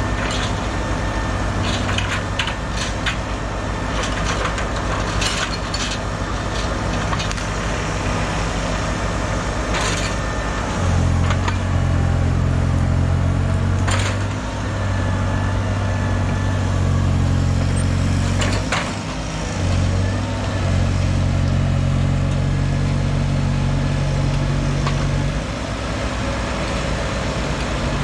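Heavy diesel machine engine running under working load, rising in revs and loudness about eleven seconds in and dipping briefly twice later, with scattered metallic clanks and knocks.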